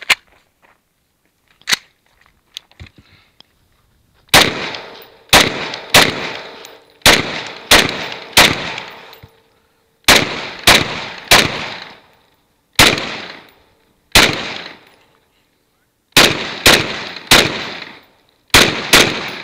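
Rifle fired in quick strings of two or three shots, about sixteen shots in all beginning about four seconds in, each shot trailing off in an echo. A few faint handling clicks come before the first shot.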